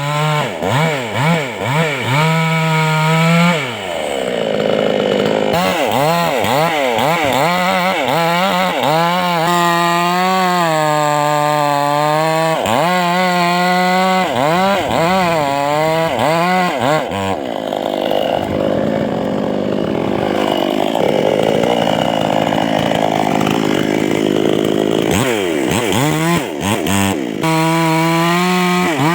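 Chainsaw engine revving up and down over and over. For a couple of seconds about four seconds in, and for several seconds from about the middle on, it runs lower and rougher under load as the chain cuts through the tree's wood.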